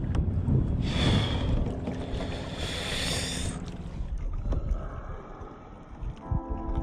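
Wind rushing over the microphone and water washing around a kayak, swelling about a second in and again around three seconds. The sound then cuts to a quieter stretch, and soft ambient music comes in near the end.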